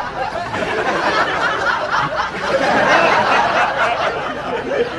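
Studio audience laughing, a dense crowd laugh that swells about halfway through.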